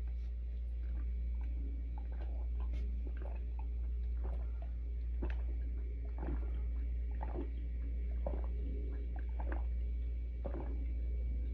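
A person gulping water in a run of swallows, roughly one a second, with short mouth and throat sounds in between, over a steady low hum.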